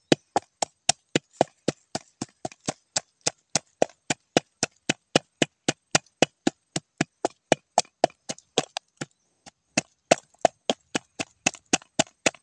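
Spice paste of ginger and garlic being pounded with a pestle: steady sharp knocks, three to four a second, with a brief pause after about nine seconds.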